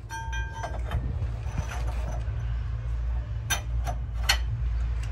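Metal clinks and knocks of hand tools during work on a BMC Pro 827 truck's differential: a ringing clink at the start and three sharp knocks about three and a half to four and a half seconds in, over a steady low hum.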